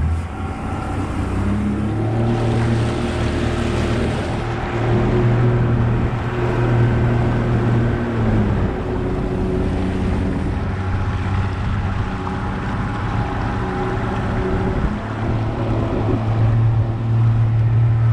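A small fishing boat's motor running under way, its pitch shifting as the throttle changes and dipping briefly about eight and a half seconds in, with wind and water rushing past the hull.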